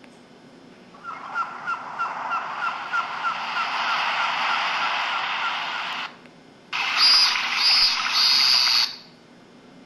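Built-in sound effects of an MS100 mobile phone played through its small speaker. The first is a hissing noise with quick chirps, about three a second, that swells over about five seconds. After a short gap comes a second, louder and harsher noise with a pulsing high tone, lasting about two seconds and stopping abruptly.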